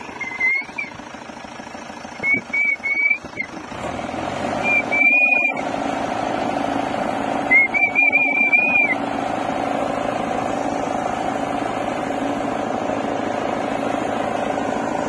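JCB 3DX backhoe loader's diesel engine running. It picks up about four seconds in and then runs on steadily. Four short, wavering high whistles sound over it in the first nine seconds, the last one trilling.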